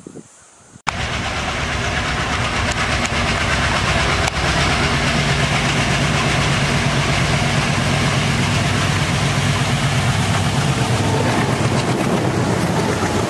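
Twin WDG-3A ALCO-design diesel locomotives hauling an express passenger train past close by at speed: a loud, steady engine rumble mixed with wheel and rail noise, starting abruptly about a second in.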